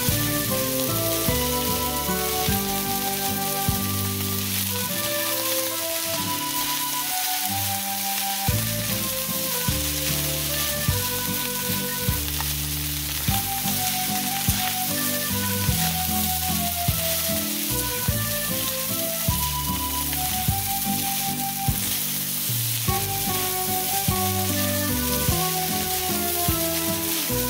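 Egg fried rice sizzling in a hot stainless steel pan as it is stirred with a spatula, a steady hiss, with background music playing underneath.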